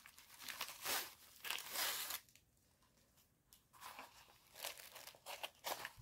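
Thin plastic mailer bag crinkling and tearing as hands work it open and draw out a paper-wrapped package, in short rustling bursts with a quiet pause of about a second and a half in the middle.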